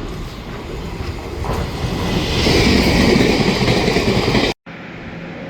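Taiwan Railway EMU800 electric multiple unit train running by, its wheels on the rails and running gear building to a loud rush that peaks about two to four seconds in. The sound cuts off abruptly near the end and comes back much quieter.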